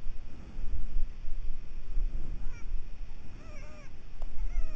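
A few short, bending calls, the first about halfway through and more near the end, over a low rumble of wind on the microphone.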